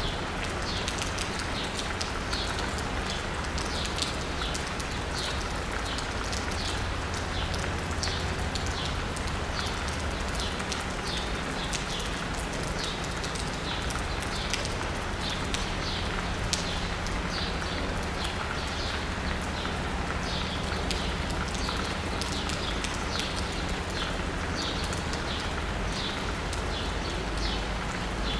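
Steady rain pattering on asphalt and a roof, with birds chirping over it in short, repeated notes one or two a second. A low, steady rumble of distant city traffic lies underneath.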